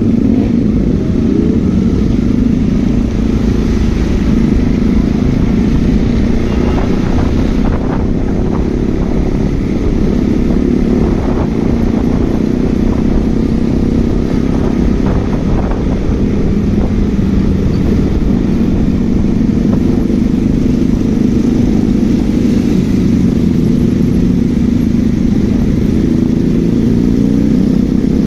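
Motorcycle engine running steadily while the bike is ridden along, over a continuous low rumble.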